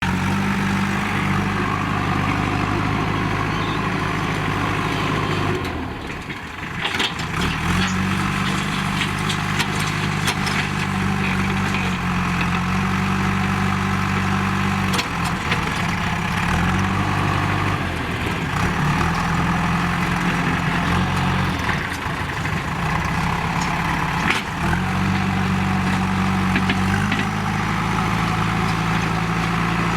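JCB 3DX backhoe loader's diesel engine running, its pitch stepping up and down with changes in revs, with a brief dip about six seconds in and scattered short knocks.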